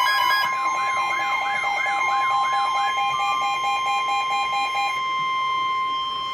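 Emergency Alert System alert tones for a severe thunderstorm warning: several steady electronic tones sounding together, with a warbling tone sweeping up and down about twice a second for the first three seconds. The stack thins out near the end, leaving a single steady tone.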